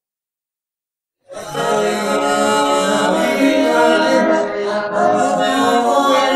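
Isolated male backing harmony vocals, two voices singing held notes together without accompaniment, separated from the full mix by a source-separation model. They come in about a second in, after silence.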